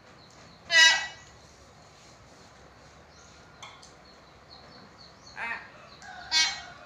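Caged hill myna giving short, loud calls: one about a second in, a weaker one about five seconds in, and another loud one near the end.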